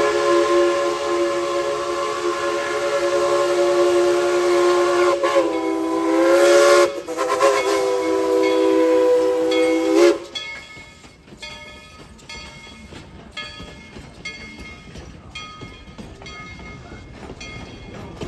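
Steam locomotive whistle blowing one long chord-like blast of about ten seconds, its pitch sagging briefly partway through before it cuts off. After that come quieter, regular knocks and clanks of the train running.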